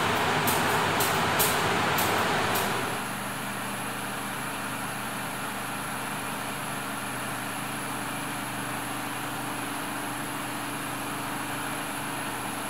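Diesel train engine running steadily, a low hum with a faint high whine. For the first two and a half seconds a louder noise with a few sharp clicks sits over it, then drops away.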